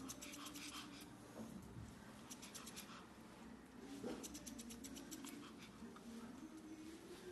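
Grooming scissors snipping through a dog's fur in short, quick runs of faint snips.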